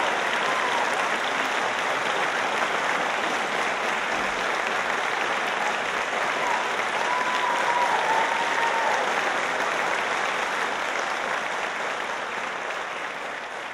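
Audience in a large hall applauding, a dense, steady clapping that fades out near the end.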